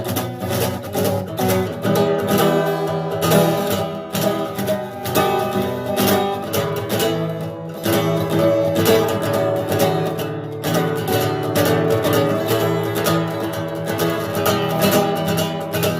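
Music: fast, continuous plucked-string playing with a steady pulse, in a bluegrass style.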